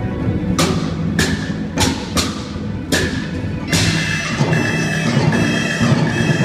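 Chinese orchestra playing: a held low chord under six sharp, unevenly spaced percussion strikes that ring on after each hit. About four seconds in, sustained high tones join.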